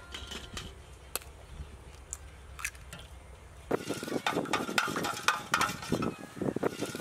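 Raw eggs being beaten briskly with a long metal spoon in a stainless steel bowl: rapid, irregular clinking and scraping of the spoon against the bowl. It starts about halfway through, after a few faint clinks.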